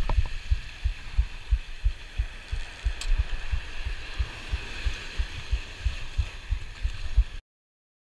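Muffled low thumps, about three to four a second, from the angler's body and the cranking of a spinning reel knocking against a chest-mounted camera, over a steady hiss of surf wash. The sound cuts out completely near the end.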